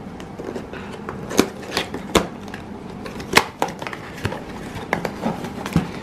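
Cardboard box being opened by hand: the end flap and tab are pulled and the box is handled, giving soft rustling and scraping with a few sharp clicks.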